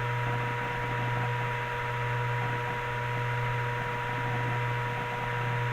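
Steady background hum with an even hiss and two faint steady high tones, unchanging throughout.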